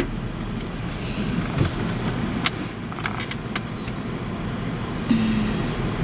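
Chevrolet Cruze idling, heard inside the cabin as a steady low rumble, with a few light clicks and a short low hum near the end.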